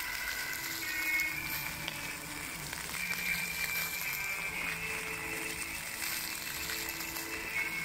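Music with long held notes playing over the steady hiss and splash of fountain jets.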